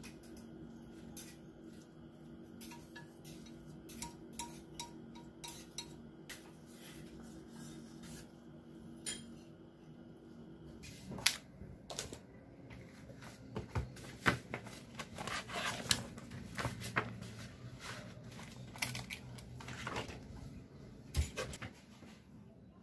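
Wooden chopsticks tapping and scraping on a ceramic dish as food is arranged, with small clicks over a faint steady hum. About halfway through come louder knocks and rustles as papers are moved and the dish is handled and set down on a table.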